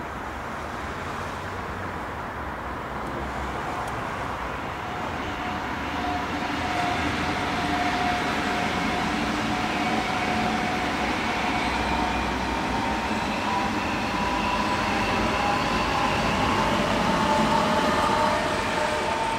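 ICE 3 electric high-speed train running past on the tracks, growing louder as it approaches. Its rolling noise carries several steady whining tones from the electric drive.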